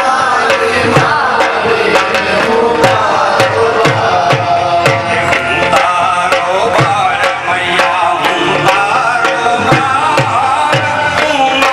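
Navratri devotional folk music: a voice singing over hand drums, with a steady beat of sharp strokes about three a second and deep drum strokes that drop in pitch about once a second.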